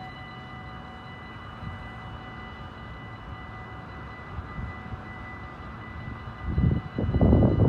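Railway level-crossing warning bells ringing steadily with the barriers lowered. From about six and a half seconds in, a loud, uneven low rumbling comes in and becomes the loudest sound.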